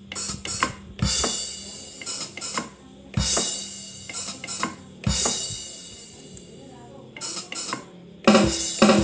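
Drum sounds from a Korg arranger keyboard, triggered by pressing foot-switch pedals. Pairs of short hi-hat hits alternate with single deeper 'des' drum hits that leave a cymbal-like wash ringing out. A louder cluster of hits comes near the end.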